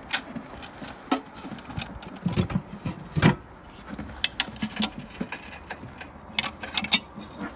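Scattered clicks and knocks from a carbon-fibre motorcycle body panel being handled and turned over in the hands, with the loudest knock about three seconds in.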